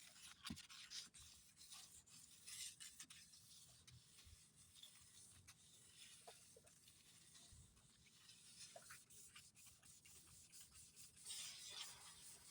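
Faint, scratchy rubbing strokes of hand sanding: 800-grit paper on a 3M sanding block worked over a car's painted rear bumper, color-sanding the fresh paint, with a few light clicks and a slightly louder stretch near the end.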